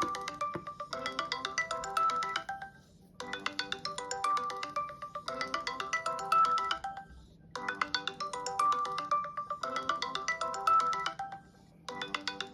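Google Duo incoming-call ringtone on a Samsung Galaxy phone: a short melodic phrase of quick, bright notes. It repeats about every four and a half seconds, with a brief gap between repeats.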